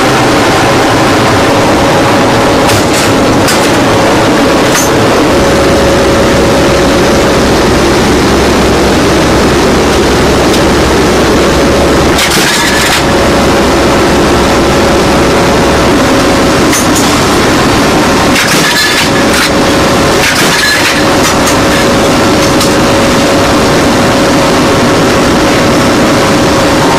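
Loud, steady mechanical rumble with scattered clicks and knocks.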